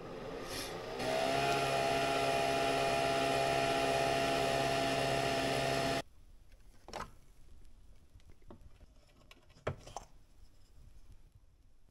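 Nespresso capsule coffee machine brewing into a mug: a steady pitched motor whir that settles into a constant pitch about a second in and cuts off sharply around six seconds in. A few light knocks and clinks follow as the sugar jar's wooden lid is handled.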